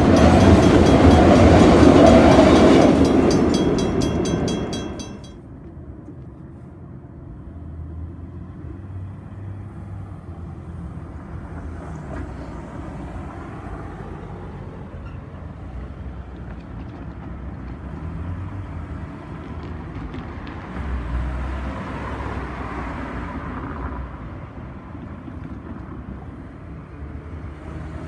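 Freight train of autorack cars rolling past at speed, with a grade-crossing bell ringing, until the last car clears about five seconds in and the sound drops sharply. After that comes a lower steady rumble, with a road vehicle swelling past later on.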